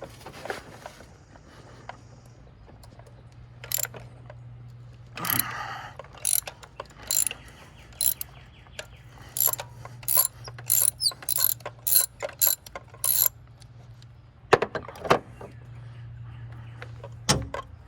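Socket ratchet clicking in short irregular runs as an old spark plug is worked loose and unscrewed, with a few louder knocks of tool on metal.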